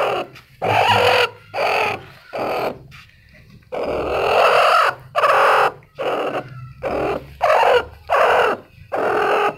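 Broody Aseel hen sitting on her eggs, giving about a dozen short, noisy protesting calls in quick succession, with one longer call a little before the middle, as hands move eggs beneath her. This scolding, and her refusal to leave the clutch, is the sign that she has gone firmly broody.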